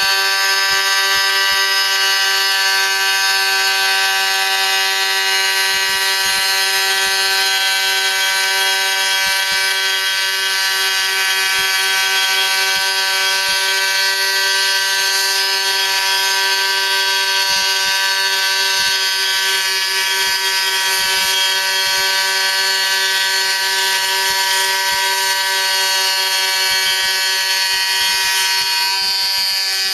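Proxxon MF70 micro mill's spindle motor running at high speed with a steady high whine, milling 1 mm carbon-fibre sheet under CNC control, with a hiss of cutting over it.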